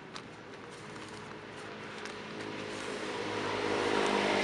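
A motor vehicle's engine passing by, its steady hum swelling louder toward the end. Faint scratches come from hands pressing soil into a plastic grow bag.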